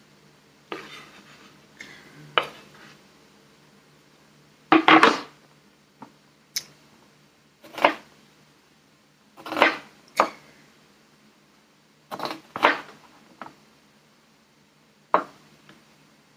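Irregular clinks, knocks and clatters of kitchen utensils and cookware, a dozen or so separate hits spaced one to three seconds apart, the loudest a short clattering cluster about five seconds in. A faint steady low hum runs underneath.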